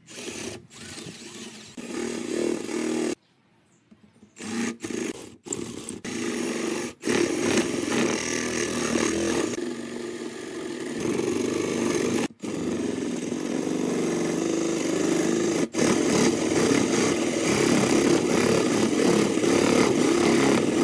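Cordless drill driving a spade bit into a wooden board, boring a hole and chewing out wood chips. It runs in short stop-start bursts at first, with a brief silence about three seconds in, then runs steadily for most of the rest, with two brief pauses.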